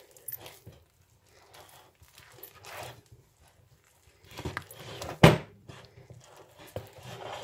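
Bread dough being kneaded by hand in a glass bowl: irregular squishing and rubbing of the dough, with one sharp knock a little past five seconds in.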